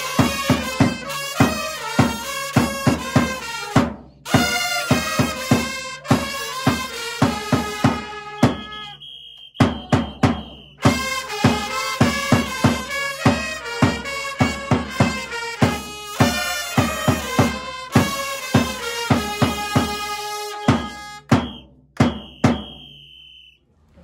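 Two trumpets and a marching drum playing a baseball cheer song, the drum hitting a steady beat under the trumpet melody. About nine seconds in the trumpets drop out for a drum-only break of about two seconds, and a long high note is held twice.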